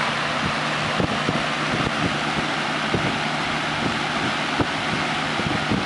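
Lakewood C-122 12-inch box fan with its small GE motor running steadily on high speed: an even rush of air blowing across the microphone, with a low motor hum underneath.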